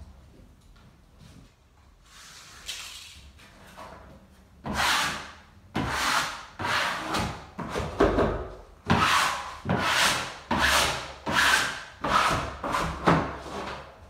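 Faint rustling, then from about five seconds in a rhythmic run of about a dozen rubbing strokes across wallpaper, roughly one every two-thirds of a second, as a fresh strip is smoothed onto the wall.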